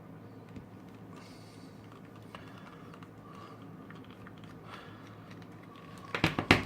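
Small handling sounds of a tiny screwdriver turning a screw out of a cheap plastic USB vacuum cleaner casing: faint scratches and ticks, then a quick cluster of sharp plastic clicks about six seconds in.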